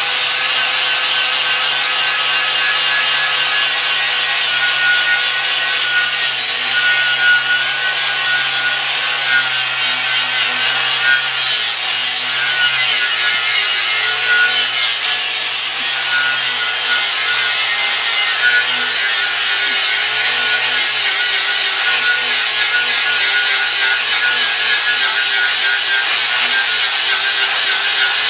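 Electric angle grinder with a flap disc grinding steel, running without a break, with a steady high whine that wavers slightly as the disc bears on the metal.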